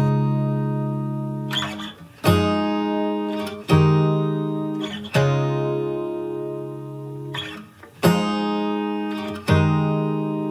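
Background music: slow acoustic guitar chords, each struck and left to ring and fade before the next.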